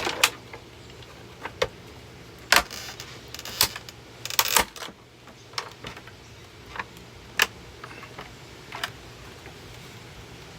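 Irregular sharp cracks and knocks of plastic as a Hoover vacuum cleaner is being broken apart, with a short cluster of rattling clatter about four and a half seconds in.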